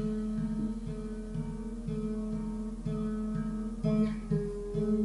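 Acoustic guitar played softly, picked notes in a slow, even pattern over a low note that rings throughout.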